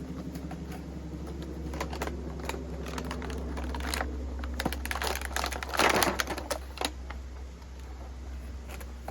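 Handling and opening a toy's packaging: scattered sharp clicks and crinkling of box and plastic, with a louder rustle about six seconds in. A steady low hum runs underneath.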